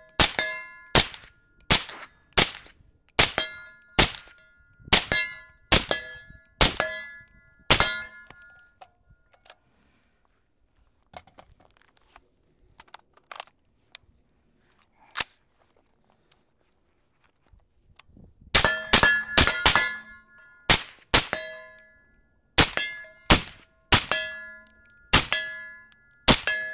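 Suppressed AR-15 in 7.62x39 firing single shots at steel targets: each sharp shot is followed by the ringing clang of a steel plate hit. About ten shots come at a steady pace, then a lull of roughly ten seconds with only a lone shot, then a quick burst of shots and more evenly spaced ones, most of them ringing steel.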